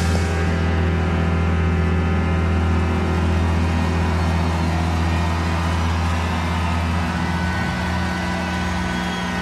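A rock band's amplified instruments holding a loud, sustained low drone through the concert PA, steady with many held overtones. The lowest note drops away about seven seconds in.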